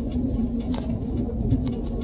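Vehicle engine drone and tyre rumble heard from inside the cabin while driving on a snow-covered road: a steady low hum over rumble, with a few light clicks.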